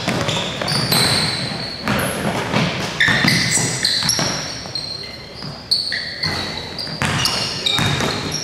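A basketball being dribbled on a gym's hardwood floor, with frequent short high-pitched squeaks from players' sneakers as they run and cut. Players' voices call out in between.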